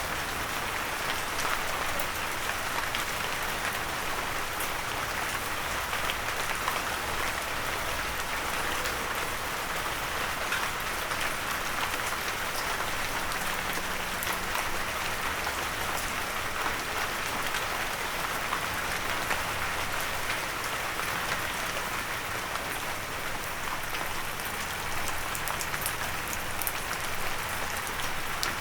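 Steady rain falling, with many small drops tapping on a windowsill.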